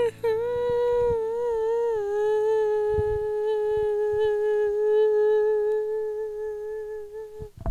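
A single voice humming one long held note that wavers at first, slides down a little about two seconds in, then holds steady until it stops near the end.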